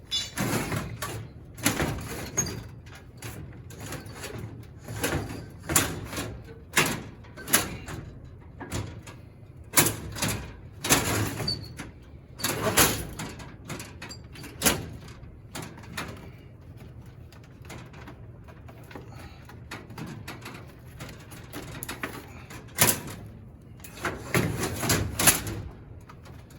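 Irregular knocks, clicks and rattles of hard parts being handled and set down, roughly one or two a second, with a busier cluster near the end.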